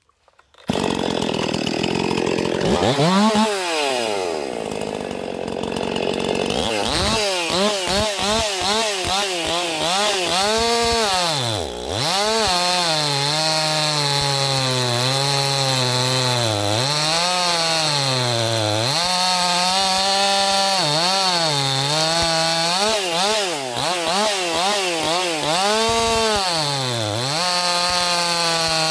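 Stihl chainsaw with a 40 cm bar and full-chisel chain cutting through a log. It comes in abruptly near the start at high revs, and the engine pitch dips and recovers over and over as the chain bites into the wood.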